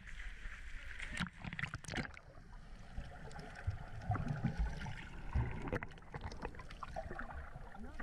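Seawater sloshing and lapping around a waterproof action camera held at the surface, with muffled low thumps and splashes as jumpers hit the water, and faint voices in the background.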